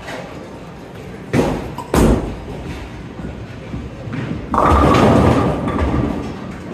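Storm Revenant bowling ball thrown down a lane: two heavy thumps about half a second apart as it is laid onto the lane, a rolling stretch, then the ball crashes into the pins about four and a half seconds in, the loudest sound, with the pins clattering for about a second and a half.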